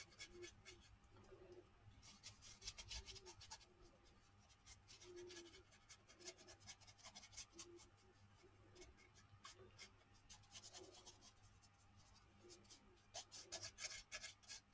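Faint, scratchy strokes of a paintbrush working wet watercolour-pencil paint over paper, in short spells.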